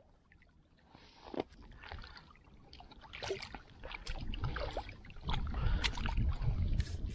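Shallow lake water splashing and sloshing around shoreline rocks as a stringer of crappie is handled, with many short clicks and knocks from the handling. From about five seconds in, a heavy low wind rumble on the microphone is the loudest sound.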